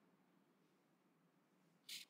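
Near silence: quiet room tone, broken near the end by one brief, soft hiss-like noise.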